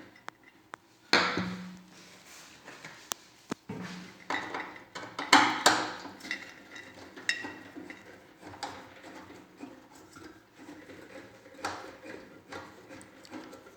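Tools and hard metal parts being handled and set down during a microwave oven repair: irregular clicking and clattering, with a few sharper knocks about a second in, near four seconds and around five to six seconds.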